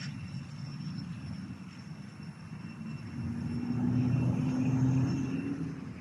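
Engine drone from a passing motor, steady in pitch, swelling to its loudest about four to five seconds in and easing off near the end.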